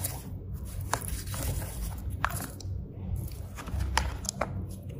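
A metal scraper tool scraping and knocking hardened slag out of a graphite exothermic-welding mould, heard as a series of short, sharp clicks and scrapes.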